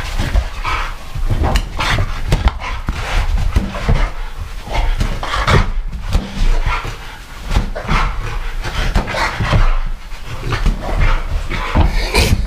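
Bulldog panting hard and fast during rough play, in irregular bursts.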